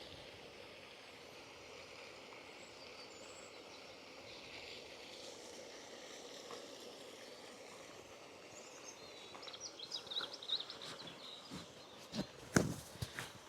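Faint birdsong over quiet outdoor ambience; about nine seconds in, a small bird twitters more loudly for a couple of seconds. Near the end come a few sharp clicks, the loudest sounds here.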